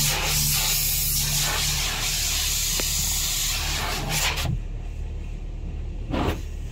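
Car-wash high-pressure water jets spraying against the windscreen, heard from inside the car's cabin as a loud hiss. The hiss drops away about four and a half seconds in and comes back in two short surges near the end, over a low steady hum.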